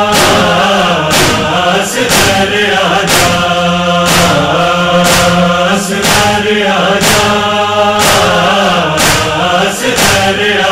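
Chanting voices of an Urdu noha lament, sung in long wavering lines over a steady low hum, with a beat about once a second.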